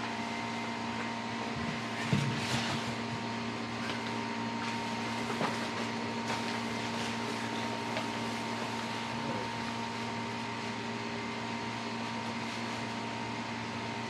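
Steady hum of running machinery: several constant tones over an even hiss, like fans or ventilation, with a few faint knocks about two seconds and five seconds in.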